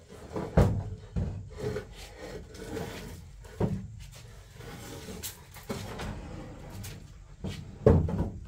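Irregular knocks and thuds of objects being handled, with scraping or rubbing noise between them; the loudest knocks come just after the start and near the end.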